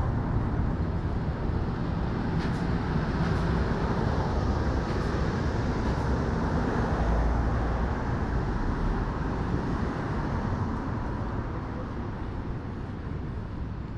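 City street ambience: a steady wash of traffic noise, with a deeper low rumble building about seven seconds in and easing off toward the end.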